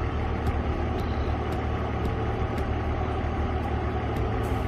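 BMW E46 330i's 3.0-litre straight-six idling steadily while it warms up after a coolant refill, its electric radiator fan not yet running. A light tick repeats about twice a second over the engine sound.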